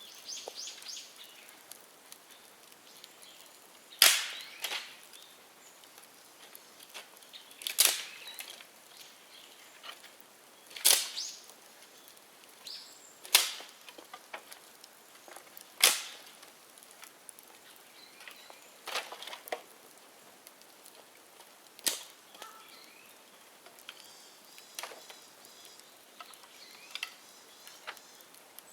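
Dead bamboo burning in an open bonfire, with sharp loud pops every few seconds as the hollow culms burst in the heat, over a low crackle. Birds call faintly in the background.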